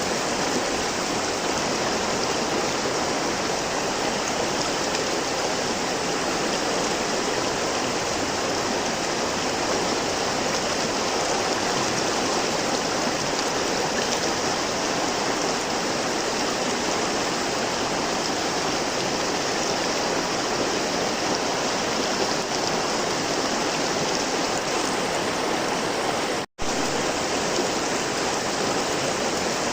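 River water flowing and rushing steadily, an even splashing wash. It cuts out to silence for an instant about three-quarters of the way through, then carries on unchanged.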